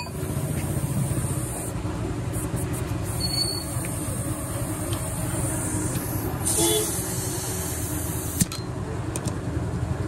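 Diesel engine of a JCB 3DX backhoe loader running steadily while working, with a single sharp knock about eight seconds in.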